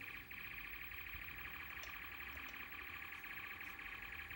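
A steady, high-pitched electronic buzz with a fast rough flutter, held without a break for several seconds.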